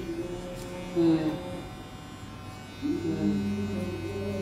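A cordless electric hair clipper buzzing steadily as it shaves the undercut at the nape. Voices talk underneath it.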